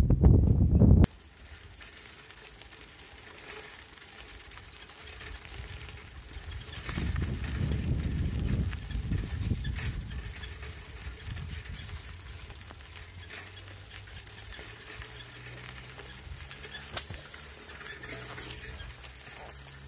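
Bicycle ridden over a gravelly dirt track, with faint rattles and clicks from the bike and tyres, and wind buffeting the microphone. The wind rumble cuts off sharply about a second in and gusts up again for a few seconds in the middle.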